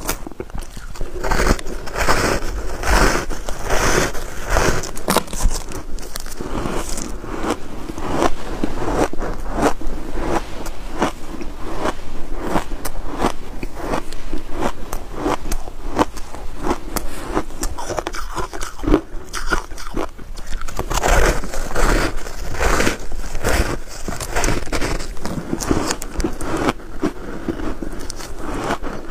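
Close-miked biting and chewing of dry shaved ice coated in green matcha powder, with a steady run of crisp crunches.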